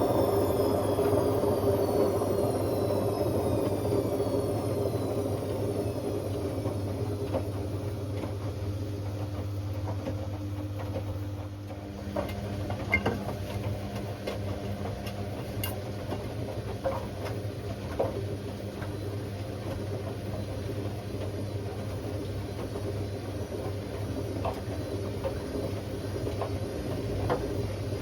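Hotpoint Aquarius WMA50 washing machine slowing down from a spin: the motor's whine falls in pitch and the sound fades. About twelve seconds in it settles into a steadier low hum, with scattered clicks and knocks from the drum.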